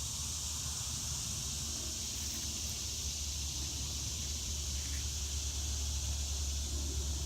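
Steady high-pitched drone of a summer insect chorus, unbroken throughout, over a low steady rumble on the microphone.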